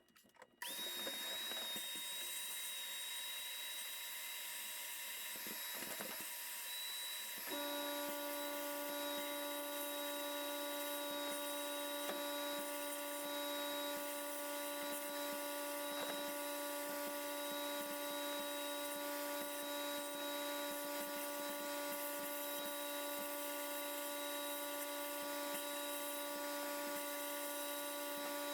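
Shop machinery running: a steady high whine over hiss, joined about seven seconds in by the steady hum of an electric motor switching on.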